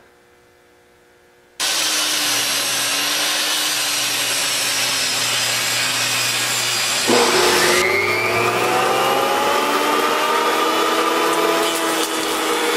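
A Ryobi table saw cutting eastern red cedar starts abruptly about a second and a half in and runs steadily. About seven seconds in it gives way suddenly to a Porter-Cable benchtop jointer shaving a cedar board, its whine rising in pitch for a couple of seconds and then holding.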